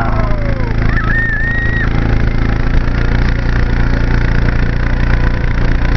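Engine of the vehicle towing the sled running steadily at an even pitch, with snow hiss under it. A rider shouts at the start and lets out a high, drawn-out whoop about a second in.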